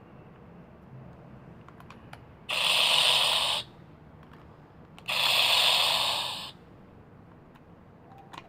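A cheap MP3 sound-effect module plays its recorded explosion sound twice through its small speaker. Each burst lasts a second or so, starts suddenly and sounds thin, with no low end.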